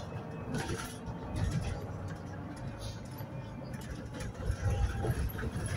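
Solaris Urbino 12 city bus under way, heard on board: its DAF PR183 9.2-litre diesel engine running as a steady low rumble, with scattered short knocks and rattles.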